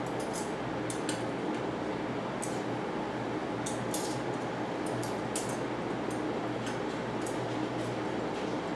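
Light metallic clicks and clinks, a dozen or so at irregular intervals, from small bike parts and tools being handled during cable fitting, over a steady background hum.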